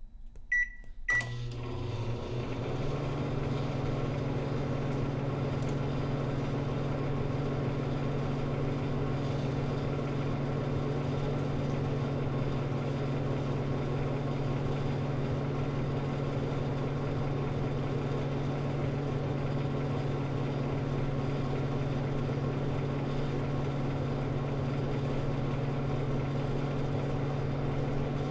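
Microwave oven starting up: two short high beeps, a click, then the steady hum of the oven running, with a strong low drone.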